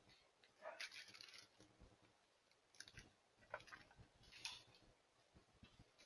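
Faint crunching rustles in dry forest leaf litter and twigs, as from an American black bear moving about near the trail camera: four short bursts, the loudest about a second in.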